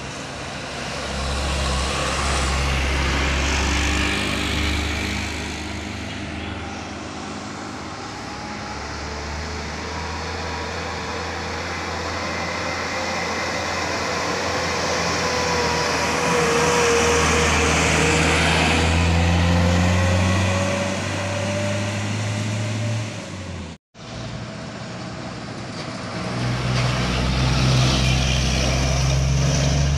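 Trucks and other vehicles passing close by one after another, their diesel engines running and tyres on asphalt, louder as each goes past. A steady whine rides over the engine noise in the middle, and the sound cuts out briefly about two-thirds of the way through.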